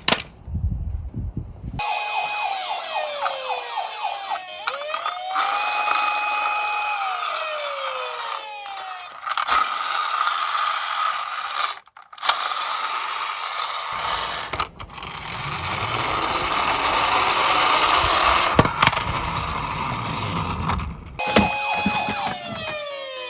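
Electronic sirens of toy ambulances and fire engines, tones that rise, hold and fall over and over, above the steady rattle of small toy cars rolling down a slope, with a few sharp clicks and brief breaks.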